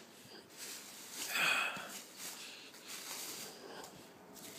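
Plastic bubble wrap rustling and crinkling as it is handled, in several soft swells, the loudest about a second and a half in.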